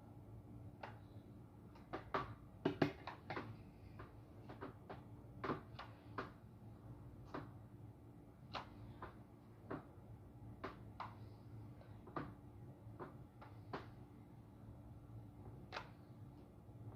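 Hair straightener's plates clicking shut again and again as strands of hair are pressed, irregular faint clicks about once a second with a quick flurry of them two to three seconds in.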